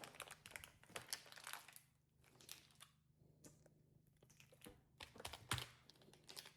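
Faint crinkling and clicking of plastic slime packaging being handled, in short scattered bursts that go quiet for a couple of seconds in the middle.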